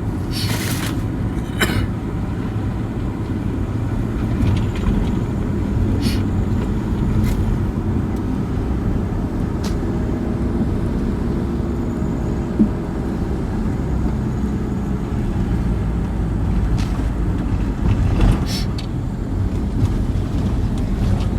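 Truck engine running steadily while the truck drives on a rough track, with occasional knocks and rattles from the body.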